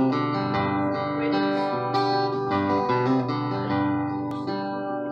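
Solo acoustic guitar playing chords in a song's instrumental intro, with new chords sounding every second or so and ringing on.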